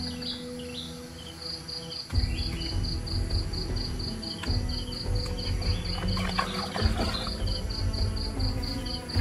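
Cricket chirping in a fast, even pulse over background music, whose bass beat comes in about two seconds in.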